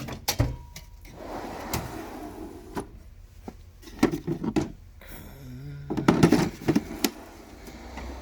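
Steel drawers of a Snap-on Classic 96 tool box sliding open and shut, with a series of clunks and clicks from the drawers and the tools in them. The clunks are most frequent about four seconds in and again near the end.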